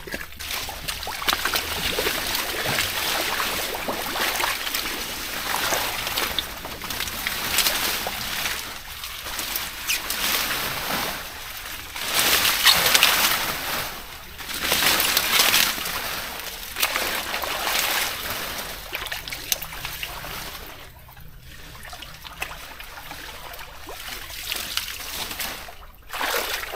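Shallow pond water splashing and sloshing in repeated, irregular surges as people wade and grab for fish by hand.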